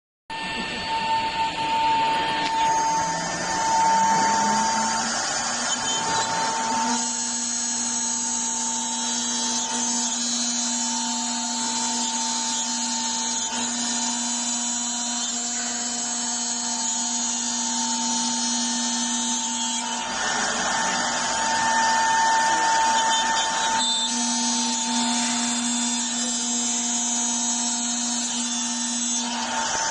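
Wood CNC router's spindle running with a steady high whine as the bit carves into a wooden board, over a hiss of cutting. A lower tone rises in pitch over the first few seconds, and the cutting gets louder and noisier near the start and again about two-thirds of the way through.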